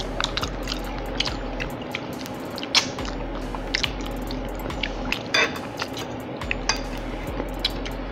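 Eating at close range: chewing and mouth sounds, with a fork clicking and scraping on a plate. The clicks come irregularly, and a sharper clatter sounds about five seconds in.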